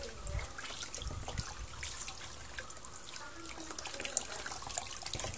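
Water running from a garden hose onto a puppy and splashing into a plastic basin of water, with small scattered splashes and drips while she is rinsed.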